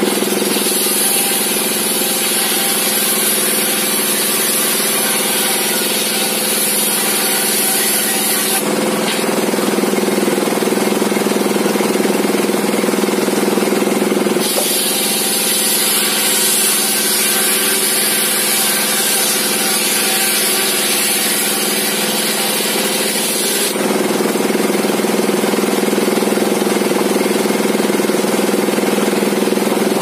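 Circular saw blade of a homemade, belt-driven saw table running steadily, ripping timber into planks in two long cuts of about nine seconds each. The first cut starts right away; the second runs from about fourteen seconds in to about twenty-four. Each cut adds a high whine over the running saw.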